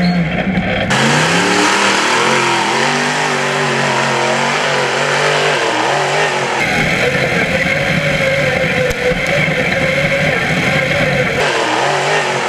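Rock bouncer race buggy's engine revving hard, its pitch rising and wavering with the throttle as it claws up a steep dirt hill with dirt spraying from the tyres. The tone changes abruptly about a second in, about halfway through and near the end.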